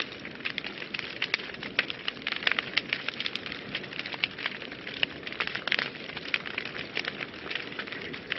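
Wood fire burning in a fireplace: a steady hiss with many irregular sharp crackles and pops.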